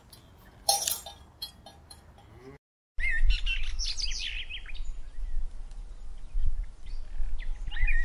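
Cowbells clanking on grazing cattle, with one louder clang about a second in. After a brief cut to silence, small birds chirp and twitter with quick, high, rising and falling notes.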